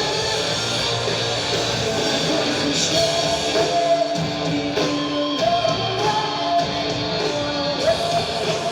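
Live rock band playing with a singer holding long sung notes over electric guitars and drums.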